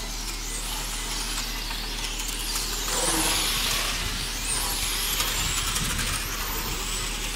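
Radio-controlled racing cars running on a track, their motors whining in high tones that rise and fall as the cars accelerate, brake and pass, loudest about three seconds in.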